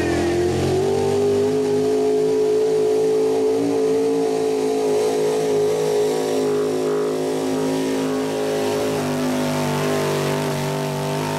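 Modified gas pulling truck's gasoline engine running flat out under load as it drags the weight sled. The revs climb in the first second, then hold high and steady.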